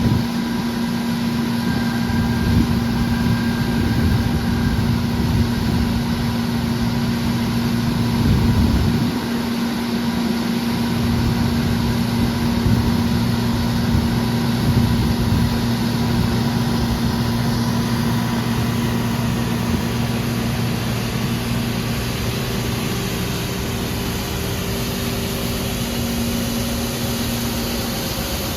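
Heavy farm engine running steadily at a constant speed, a continuous engine drone with small swells in level.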